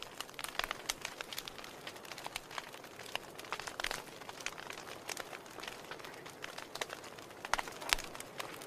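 Wood fire in a fireplace crackling: irregular sharp pops and snaps from the burning logs over a soft steady hiss, with a few louder snaps near the end.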